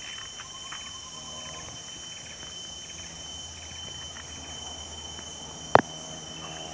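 Steady high-pitched chorus of insects, with one sharp click or knock a little before the end.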